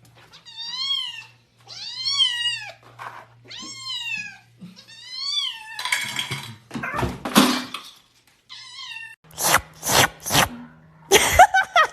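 A cat meowing four times, each meow rising and then falling in pitch. In the second half these give way to harsher, noisier sounds and several sharp knocks.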